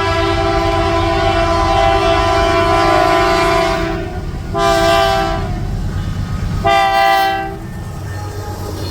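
Locomotive air horn sounding a chord: a long blast that ends about four seconds in, then two short blasts of about a second each, over the low rumble of the train.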